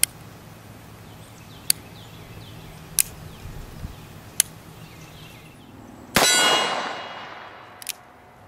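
A single shot from a Colt Single Action Army revolver in .45 Colt, followed by the ringing of a struck steel target that fades over about a second and a half. Before the shot there are a few sharp, separate metallic clicks.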